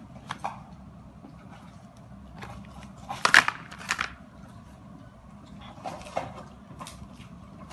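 Clear plastic blister packaging crinkling and crackling in the hand in short bursts, loudest a little over three seconds in, over a low steady hum.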